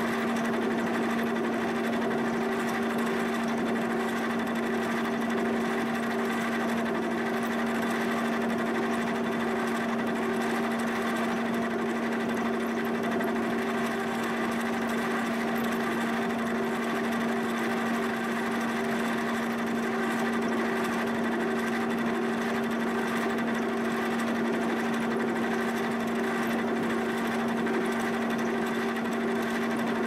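Giddings & Lewis horizontal boring mill running steadily, its spindle turning a small drill bit into the end of an 8620 steel camshaft core to drill an intersecting oil hole. The sound is an even machine hum with one strong low tone and fainter higher tones, unchanging throughout.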